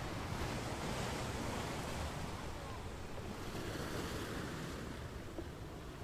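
Sea waves washing gently: a steady rush of water that swells and eases softly.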